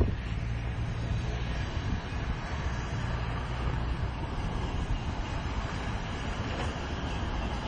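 Diesel locomotive hauling a freight train, its engine giving a steady low drone with a hum.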